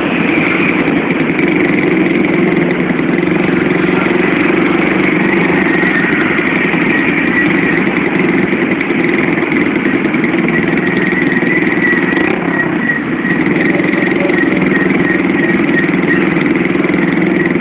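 Motorcycle engine running steadily while riding through traffic, with road noise.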